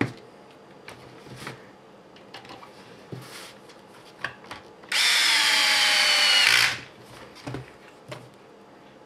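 Cordless electric screwdriver running once for under two seconds, a motor whine that drops slightly in pitch as it turns a small screw in the plastic chassis. Light clicks and taps of small plastic parts being handled come before and after it.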